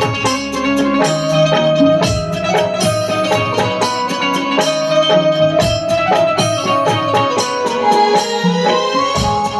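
Instrumental Indian folk-style music: a sustained melody line over a steady, driving percussion beat.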